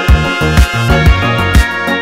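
Dance music with a steady four-on-the-floor kick drum, about two beats a second, under a melody with brass-like lines.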